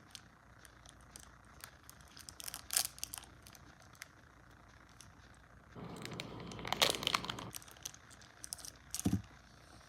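Crinkly plastic wrapper of a protein bar being handled and torn open: scattered crackles at first, then a longer, louder tearing rustle from about six to seven and a half seconds in. A short dull knock near the end.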